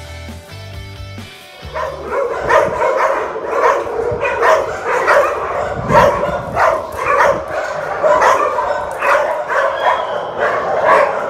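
Guitar music for the first couple of seconds, then many shelter dogs in their kennels barking at once, loud and continuous.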